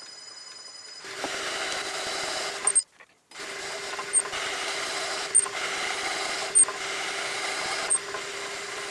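Metal lathe turning a miniature petrol engine's crankshaft. The motor runs with a quiet whine, then about a second in the tool starts cutting, giving a louder steady scraping hiss with a held tone. The cut breaks off briefly about three seconds in, then carries on with a sharp tick about every second.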